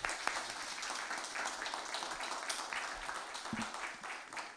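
Applause: many people clapping together, a dense patter of hand claps that begins to die away near the end.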